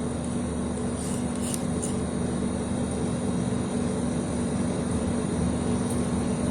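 Steady mechanical hum over an even background noise, holding two fixed tones, with a few faint light ticks about a second in.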